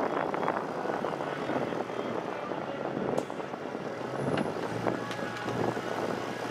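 Rock-crawling buggy's engine running and revving unevenly as the buggy climbs a rock ledge, settling to a steadier low note in the second half.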